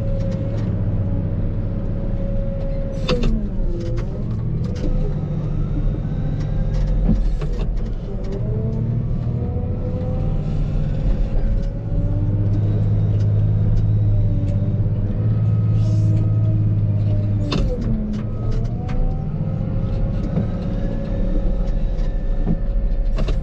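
Engine of a loading machine working under load, a steady run with a whine that drops in pitch and climbs back up twice, and scattered sharp knocks.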